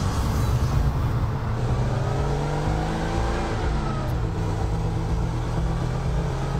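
Car engine sound effect on a commercial soundtrack: a steady low engine note, its pitch gliding up and then down.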